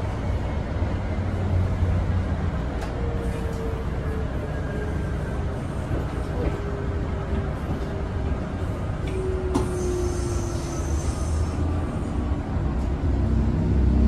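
Inside a Siemens SD660 light-rail car running along the track: a steady low rumble of wheels on rail, with a faint motor whine that falls slowly in pitch. A thin high tone sounds for about two seconds around ten seconds in.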